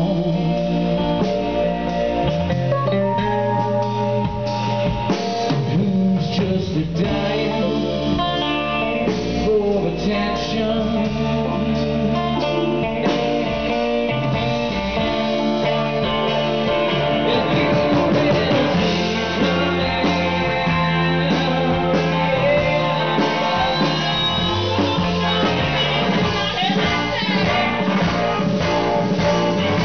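Live rock band playing a passage with no lyrics sung: electric guitars ring out over the bass and the drums at a steady, loud level.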